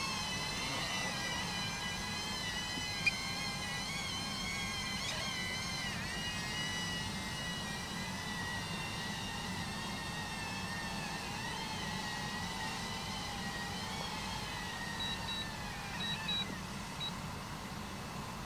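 DJI Avata drone's propellers whining as it flies low and lands, the pitch wavering up and down with the throttle, then sliding down and fading near the end as the motors spool down. A steady low hum runs underneath, with a single sharp click about three seconds in and a few short high beeps near the end.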